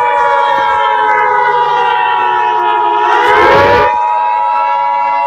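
Civil defense siren wailing, its pitch falling slowly for the first three seconds, then sweeping back up about three seconds in. A steady high alert tone sounds under it throughout.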